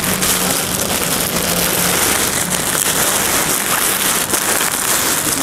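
Thin clear plastic bags crinkling and rustling continuously as plastic-wrapped jackets are rummaged through and pulled out of a large plastic sack.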